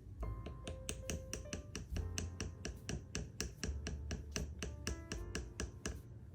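Sprinkles rattling as they are shaken from a container, a quick run of sharp clicks about five or six a second that stops just before the end, over soft background music.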